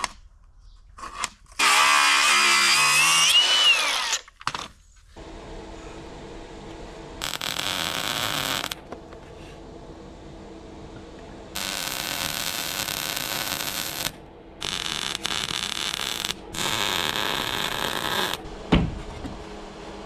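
An angle grinder cutting a strip of steel, its whine rising over about two seconds, followed by several bursts of arc welding a few seconds each as the steel extension strip is welded onto the tractor cab's door frame. A sharp knock near the end.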